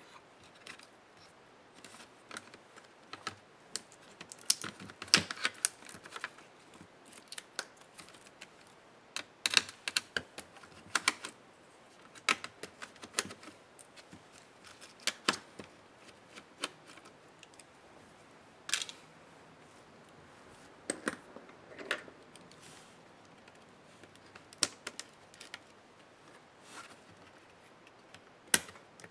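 Irregular sharp clicks and taps of small plastic and metal parts and tools being handled while an HP Pavilion 13 laptop is taken apart, in clusters with quiet gaps between.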